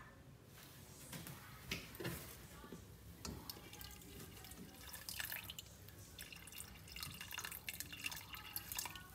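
Hot water poured from a pitcher into a pressure cooker of cooked urad dal porridge, a faint thin trickle splashing into the thick porridge, with a couple of soft knocks about two seconds in.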